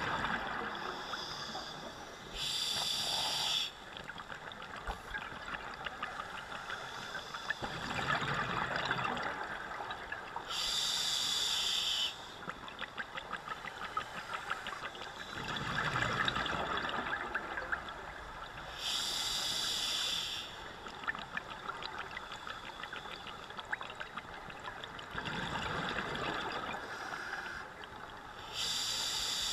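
Scuba diver breathing through a regulator underwater: a short, loud hiss about every eight seconds (the demand valve on the in-breath), alternating with a longer bubbling rush as the exhaled air escapes.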